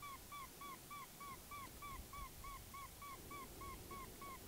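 Electronic predator call playing an animal distress sound: a short chirp that rises and falls in pitch, repeated evenly about three times a second, faint.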